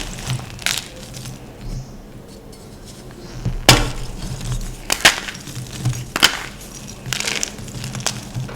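Blocks of gym chalk being crushed and crumbled: a handful of sharp snaps and crackles, mostly about a second apart, over softer crumbling, with a quieter stretch early on.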